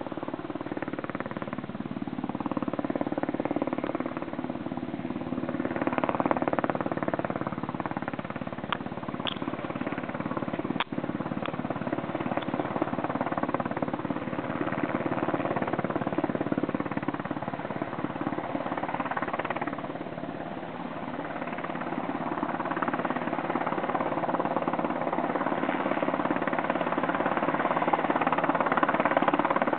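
Military helicopter's rotor beating and engine running as it circles overhead, the sound swelling and easing by turns and growing louder toward the end. A single sharp click about eleven seconds in.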